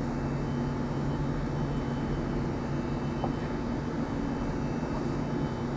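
Steady low hum of room ventilation, with a faint tick about three seconds in; the knife work on the fish is not distinctly heard.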